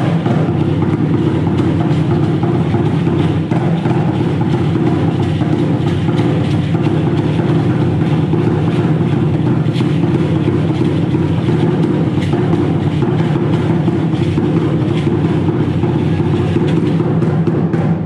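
Loud, steady live drumming on a large upright drum, a fast, unbroken beat played to accompany a dance.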